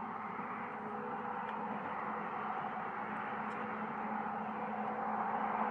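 Remote-controlled electric winch of a Harbor Freight truck-bed crane running steadily as it lowers the kayak: a continuous motor hum with a few steady tones.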